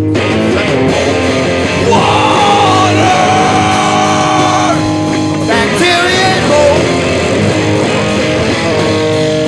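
Loud punk rock band playing: guitars under a sung vocal line that comes in about two seconds in and again past the middle.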